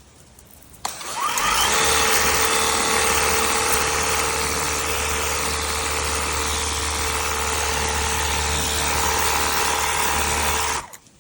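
Ontel Turbo Jet HydroX5 Pro cordless pressure washer running: a click about a second in, then its motor-driven pump runs steadily with a constant hum and the hiss of the water spray, cutting off shortly before the end.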